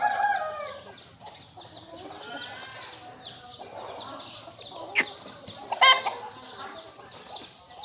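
Aseel chickens clucking and calling, with a louder call right at the start and a short, sharp call about six seconds in, over a constant rapid high chirping. A single sharp click about five seconds in.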